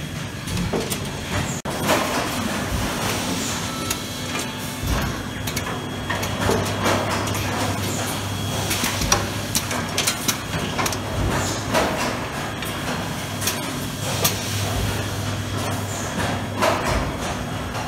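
Automatic cable assembly machine running: a steady machine hum, with a low drone that comes and goes, and frequent short clicks and knocks from its mechanisms and from parts being loaded by hand.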